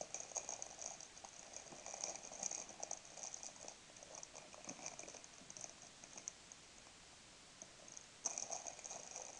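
Faint rustling and crinkling of plastic wrappers as tennis balls are handled and rubbed with hand sanitizer. It dies down for a couple of seconds and picks up again near the end.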